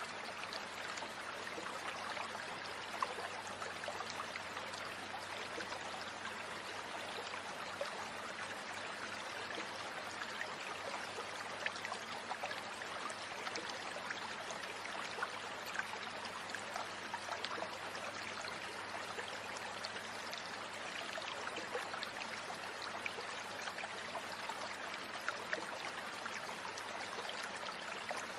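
Steady rush of a flowing stream, with tiny clicks and splashes scattered through it.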